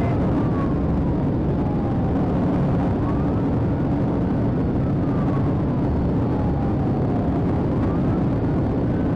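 Inside a police patrol car in a pursuit at over 100 mph: steady loud road, wind and engine noise. Over it the car's siren wails faintly in slow cycles, falling and rising again about every four to five seconds.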